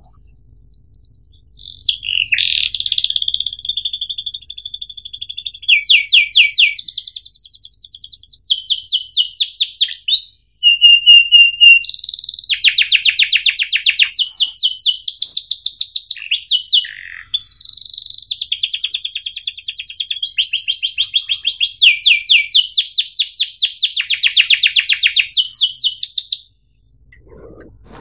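Domestic canary singing a long song of chirps and fast rolling trills, many notes a second, each run on a different pitch, with brief breaks between phrases. The song stops suddenly near the end.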